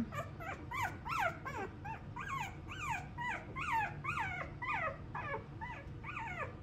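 Newborn schnauzer puppy crying in a steady run of short, high cries, two or three a second, each rising and then falling in pitch.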